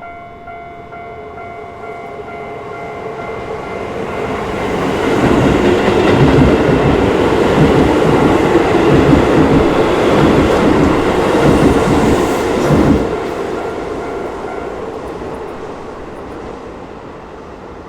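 Keisei Chiba Line electric train passing over a level crossing, its wheels clattering over the rail joints. The level-crossing warning bell is ringing at the start; the train builds up, is loudest from about 5 to 13 seconds, then drops off and fades away.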